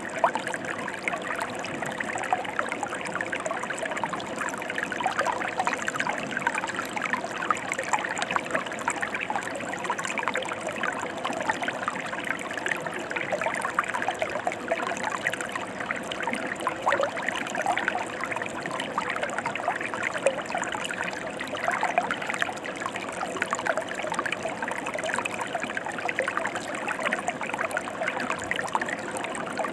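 Mountain stream flowing steadily over rocks, with a continuous splashing, trickling rush.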